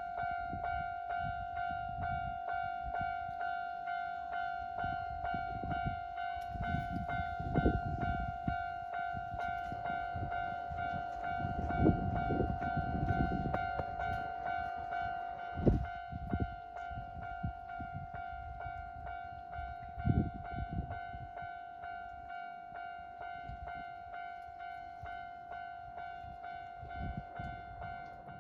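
Japanese level-crossing alarm ringing with a steady electronic ding at about two strikes a second, cutting off at the end, while a train runs past over the crossing with a low, uneven rumble.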